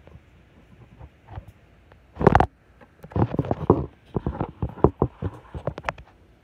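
Handling noise of a phone microphone rubbing and knocking against cloth, in irregular scuffling bursts starting about two seconds in.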